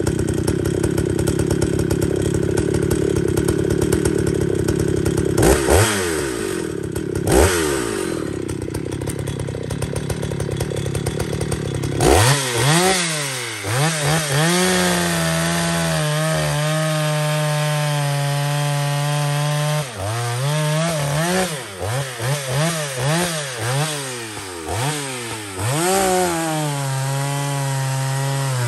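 Vintage Jonsered 920 two-stroke chainsaw idling, briefly blipped twice, then revved hard about twelve seconds in. It holds at high speed for several seconds, then is blipped up and down repeatedly.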